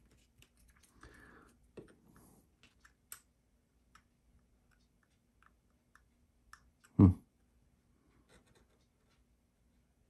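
A hobby knife trimming wrapping paper at a box corner on a cutting mat: scattered light clicks and scratches, with paper handled under the fingers. One dull thump about seven seconds in is the loudest sound.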